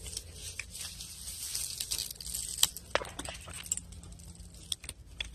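Scattered light clicks and taps of a hand tool and metal parts as a fitting on an earth wire is tightened, over a faint hiss.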